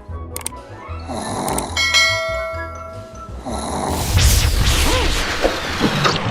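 Cartoon sound effects: a snore about a second in, then a bell ringing with several steady tones for about a second, followed by music from about two-thirds of the way through.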